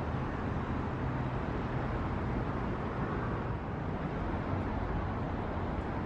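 City street traffic: a steady hum of vehicle engines and passing cars.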